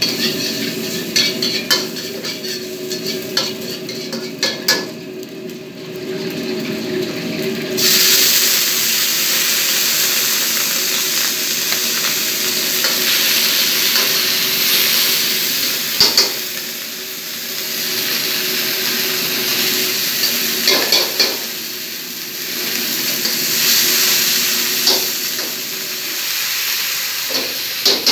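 Metal ladle stirring and clanking in a wok over a gas wok burner, with a steady hum underneath. About eight seconds in a loud sizzle starts suddenly as food hits the hot oil, and it keeps sizzling while the ladle knocks against the wok now and then.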